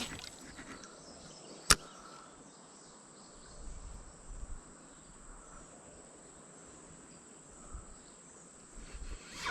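Steady high-pitched buzz of insects, with a single sharp click a little under two seconds in.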